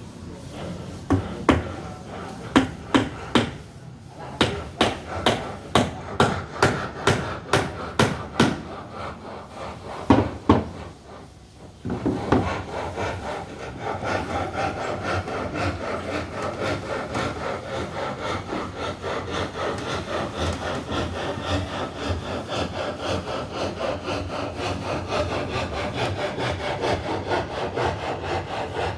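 A series of sharp knocks, then, about twelve seconds in, a steady rhythmic scraping like wood being rubbed or sawn.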